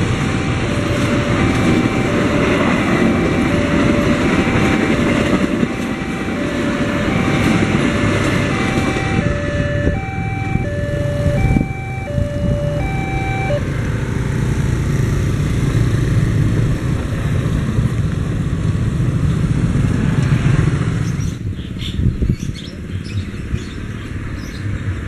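Level-crossing electronic warning alarm sounding a steady alternating two-tone chime over the rumble of a passing train. The alarm stops about halfway through as the barrier lifts, and motorcycle engines run as the riders move off.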